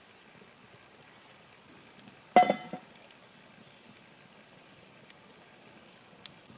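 Cast-iron skillet set down on a steel campfire grill grate: one loud metallic clank with a short ring about two and a half seconds in, a lighter knock just after, over a few faint pops of the wood fire.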